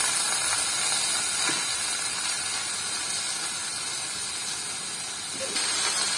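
Shredded bottle gourd sizzling in hot mustard oil in a steel karahi: a steady hiss that eases slightly, then picks up again near the end as the gourd is stirred.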